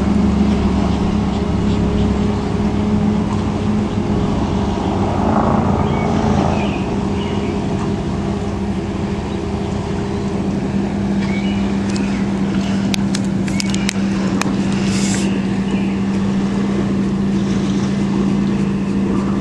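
A steady mechanical hum with one strong low held tone, like a motor or fan running. A few light clicks come about two-thirds of the way through.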